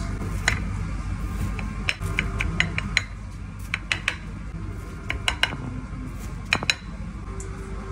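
Metal knife blade clicking and scraping against a ceramic plate as a künefe is cut into wedges. The clicks are irregular, with a quick run of them about two to three seconds in, over a steady low hum.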